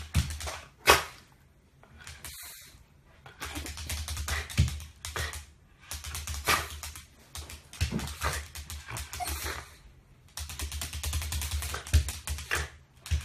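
Shiba Inu making short vocal sounds in irregular bursts, with stretches of rapid clicking between them.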